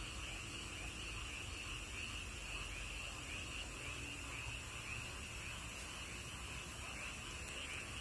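A steady night chorus of many frogs and toads calling together, a continuous high-pitched din that holds without a break.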